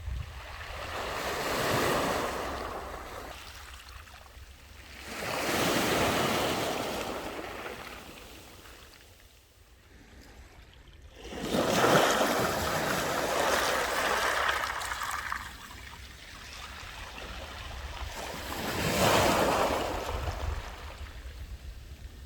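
Sea waves surging and washing onto the beach in four slow swells, the third the longest and loudest. Strong wind rumbles on the microphone underneath.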